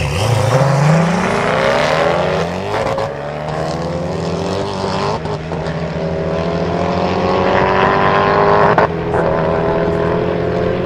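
Koenigsegg Agera and Regera twin-turbo V8s at full throttle, launching side by side from a standstill and accelerating hard away. Their engine notes rise steeply at the launch and keep climbing, with brief breaks about two, three, five and nine seconds in, where the Agera changes gear; the Regera's direct drive has no gears to change.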